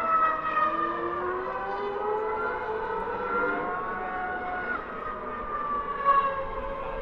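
Formula 1 cars' 2.4-litre V8 engines heard from afar as they run around the circuit: a high whine that slides up and down in pitch as they accelerate and change gear, with a sharp drop in pitch about two-thirds of the way through.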